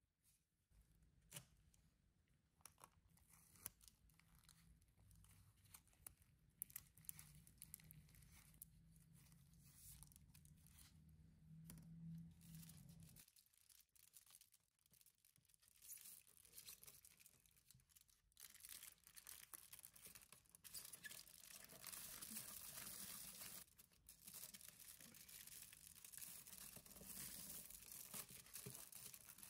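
Faint handling of bamboo sticks and tape, light clicks and rustles, as the sticks are taped into a bundle. From about halfway through, aluminium foil crinkles and crumples steadily as it is wrapped and pressed around the bundle.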